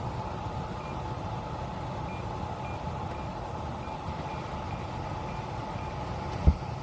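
Devola dehumidifier running: a steady fan drone with a constant hum. A single low thump comes near the end.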